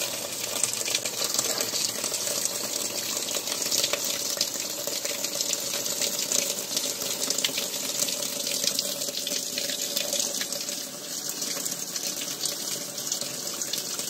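Water pouring from the inlet into the drum of a Nictemaw portable top-load washing machine, filling it at the start of a wash cycle: a steady splashing rush with a faint steady hum beneath it.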